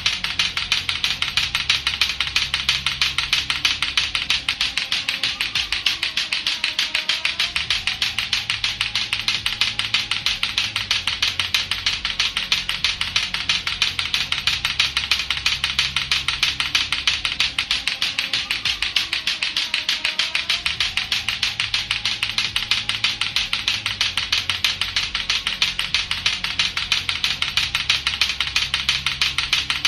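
Latto-latto clacker toy: two hard plastic balls on a string striking each other in rapid, steady clacking, over a looping musical backing with a repeating bass pattern.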